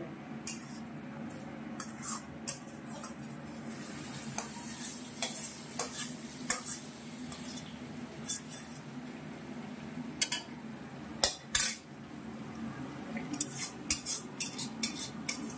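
Metal spoon scraping and clinking irregularly against a stainless-steel wok as spice paste is scraped out into hot oil, with the loudest pair of knocks about eleven seconds in. Oil sizzles softly underneath.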